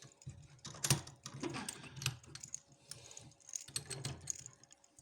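Opened Avocet 50mm brass padlock and lock picking tools being handled: a run of irregular small metal clicks and clacks, the sharpest about a second in.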